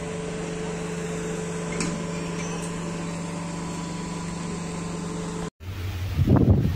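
Steady electric hum with several held tones from an Indian electric multiple-unit local train. It cuts off abruptly about five and a half seconds in, and a loud, uneven low rumble begins.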